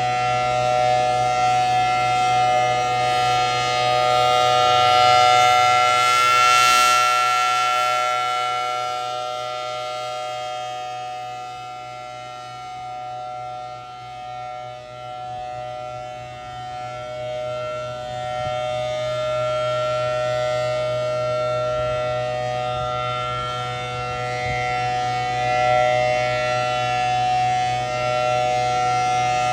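Federal Signal Thunderbolt 1000T rotating outdoor warning siren sounding its Alert signal, a steady unwavering tone. Its loudness slowly swells and fades as the rotating horn sweeps past and away, loudest a few seconds in, weakest in the middle, then building again near the end.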